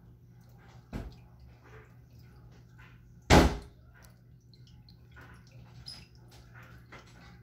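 Two dull thumps on a bathroom door, one about a second in and a much louder one a little past three seconds, with faint light ticks between: a child knocking and banging to be let in.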